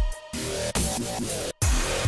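Electronic intro music with deep bass hits that drop in pitch under high held synth tones, cutting out briefly about one and a half seconds in before the beat comes back.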